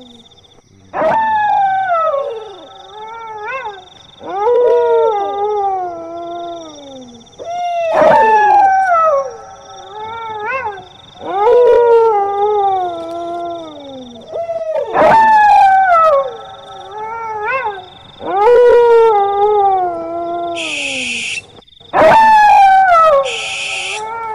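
A dog howling: long cries that slide down in pitch, repeated about every three and a half seconds.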